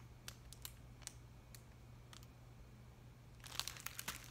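Faint scattered clicks of a picture book being handled, then a quick flurry of paper rustling and clicking as a page is turned, about three and a half seconds in. A faint low hum runs underneath.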